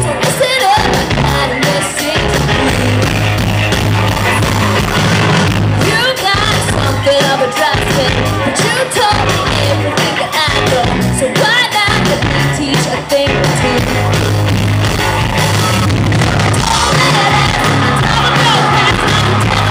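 Live band music with singing: drums, electric guitar, bass and keyboard playing under several cast members singing into microphones, heard from the crowd.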